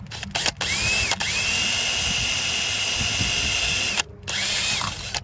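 Power drill drilling out a mounting hole. A couple of quick trigger blips, then the motor winds up and runs at a steady whine for about three seconds, stops, and spins up again briefly near the end.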